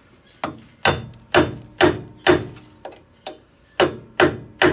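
A hammer striking a steel repair plate about ten times, roughly two blows a second, some lighter than others, each with a short metallic ring: the sheet metal is being beaten over into shape after being tack-welded.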